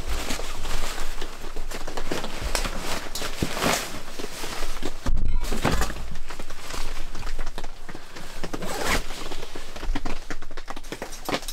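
Gear being handled: the nylon backpack and a sleeping bag in its compression stuff sack rustling as they are rummaged and pulled out, with knocks and thuds as items are set down on a wooden bench.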